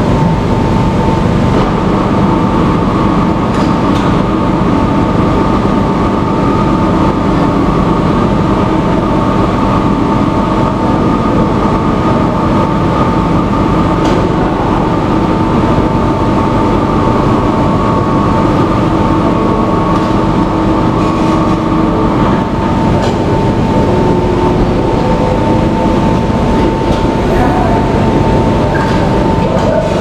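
Loud, steady mechanical running noise with a high, steady whine over a low drone.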